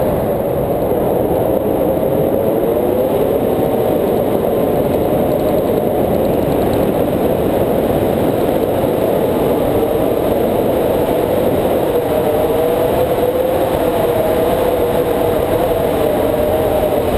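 Wind rushing over the microphone of a camera held out on a pole during a tandem paraglider flight: a loud, steady rumble with a faint wavering whistle in it.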